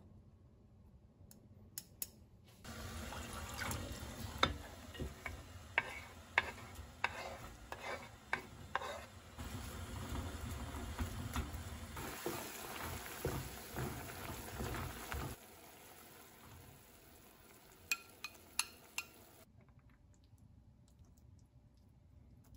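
Food frying in a pan while being stirred, the utensil clicking and scraping against the pan. The frying stops about two-thirds of the way in, followed by a few light clicks.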